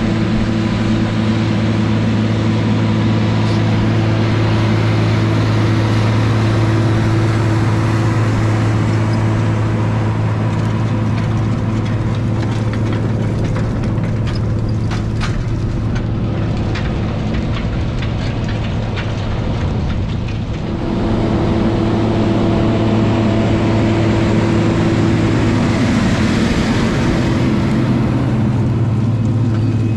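Agco DT240 tractor's diesel engine running steadily under load as it pulls an anhydrous ammonia toolbar and tank wagon past at close range. A run of clicks and rattles comes about halfway through, and the engine note shifts slightly about two-thirds through.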